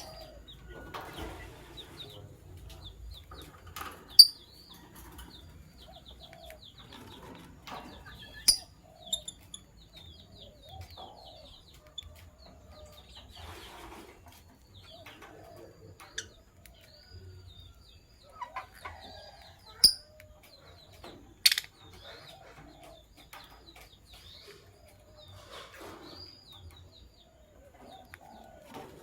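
Lovebirds chirping: a steady run of soft twittering, broken by four sharp, shrill calls, with short rustling bursts in between.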